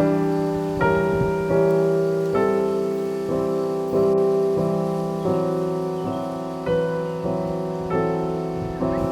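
Background music: a slow piano piece, notes struck and left to fade.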